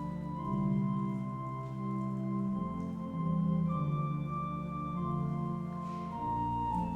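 Organ playing slow, sustained chords, the notes held for a second or two before each change.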